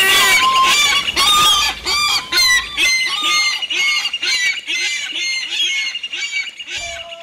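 A flock of gulls calling, many short cries overlapping, fading toward the end.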